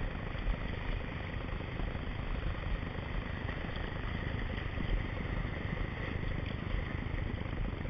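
Steady rushing of breaking surf and churning whitewater around the kayak, a low, even rumble.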